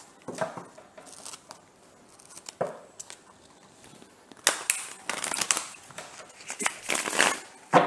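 A deck of tarot cards being shuffled by hand: several bursts of cards sliding and flapping against each other, the longest about halfway through and another near the end.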